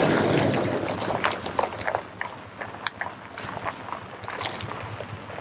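Pickup truck rolling slowly past on a gravel road. A steady engine and tyre noise fades over the first second or so. Then come scattered crackles and pops of gravel under the tyres, the sharpest about four and a half seconds in as the truck passes close.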